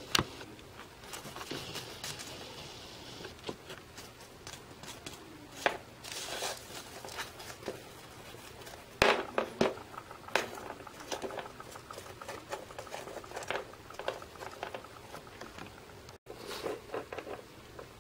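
Small plastic toys and little cardboard props being handled and set down on a wooden floor: scattered light taps, clicks and rustles, a few sharper knocks about halfway through.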